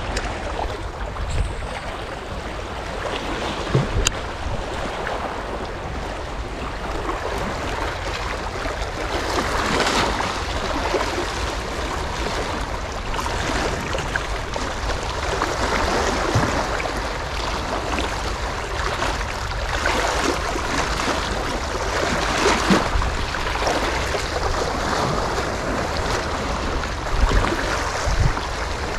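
Sea waves washing and splashing, with wind rumbling on the microphone.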